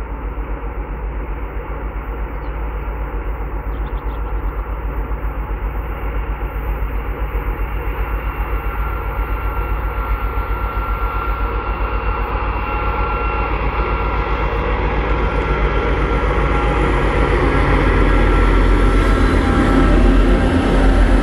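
Twin-section diesel locomotive running under load as it hauls a long freight train, a deep steady rumble that grows louder as it approaches and passes. Near the end the freight wagons rolling over the track join in.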